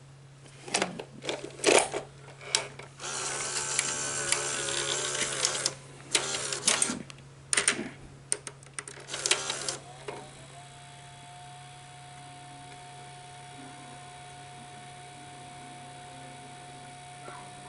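A Betamax VCR's cassette loading mechanism taking in a tape: a run of clicks and clunks, then a couple of seconds of motor whirring as it loads and runs the tape forward a little before play engages, then more clicks. About ten seconds in, these give way to a faint steady two-tone hum as playback runs.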